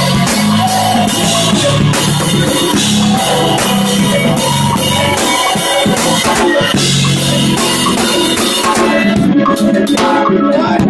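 A live jazz-fusion band plays loudly: a drum kit drives the groove under electric keyboards and a low bass line. The drumming thins out about nine seconds in while the keyboards carry on.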